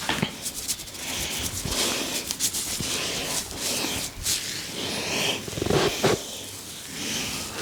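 A barber's hands rubbing and working through hair and over the scalp in a head massage: an irregular rustling and scratching broken by many quick, soft taps.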